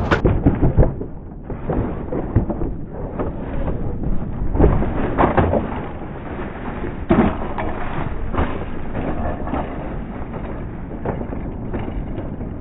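Mountain bike crash heard from the rider's camera: rushing wind and tyres on dirt, broken by thuds of bike and rider hitting the ground, the heaviest about five and seven seconds in. The sound is muffled throughout.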